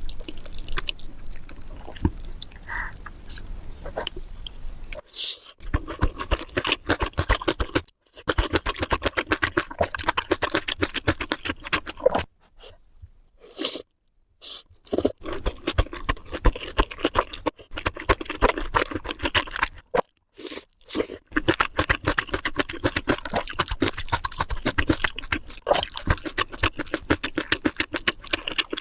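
Crispy fried chicken being bitten and chewed: dense, rapid crunching, broken by a few short pauses between bites.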